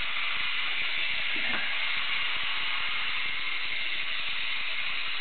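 Several clockwork wind-up toys running at once after being released, their spring motors making a steady, dense buzzing whirr.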